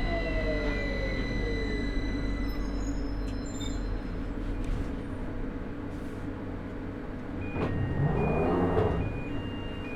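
Traction motors of a London Underground 2009 Stock train whining down in pitch as it brakes to a stop, over a steady low running rumble. About seven seconds in, the door chime beeps in alternating tones as the doors slide open.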